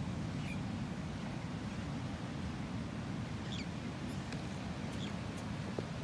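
Steady low rush of breaking surf, with three short, high, falling chirps from a small bird scattered through it.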